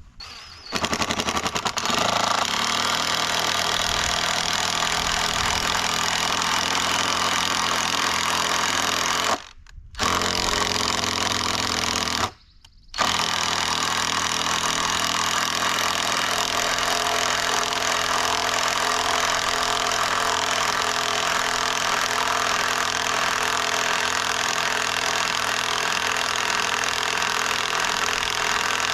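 Cordless impact driver hammering screws into the timber sawmill track, running almost without pause and stopping briefly twice.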